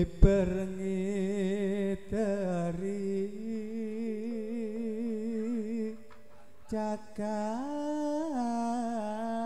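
Male voice singing a long, held Javanese gamelan vocal line with wide vibrato and sliding ornaments. It breaks off briefly twice. There are a few sharp knocks near the start and about two-thirds of the way in.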